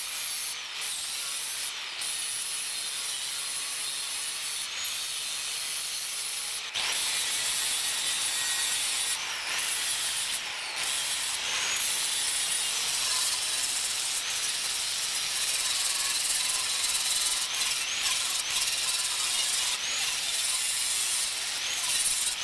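Angle grinder grinding welded thin sheet steel, a steady high-pitched grinding hiss with a few short breaks, the motor's whine climbing back up after each.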